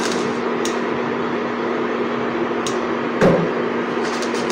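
Induction cooktop running with a steady hum and fan noise under a pan of melted paraffin wax. A few light clicks and one louder knock about three seconds in come from the stirring tool tapping the steel saucepan.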